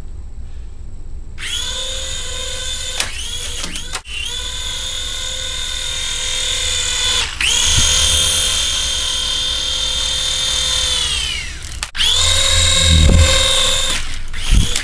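Small electric rotor motors of a Hasbro remote-control Republic Gunship toy whining at high pitch. They spin up about a second and a half in, dip briefly twice, wind down near the twelve-second mark, then spin back up with some low thumps before cutting off just before the end.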